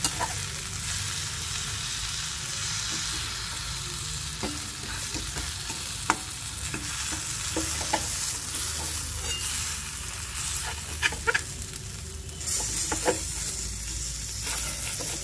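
Ridge gourd pieces and gram flour frying in a little oil in a metal pan, with a steady sizzle as the flour roasts. Now and then a slotted spatula clicks and scrapes against the pan as it stirs and turns them.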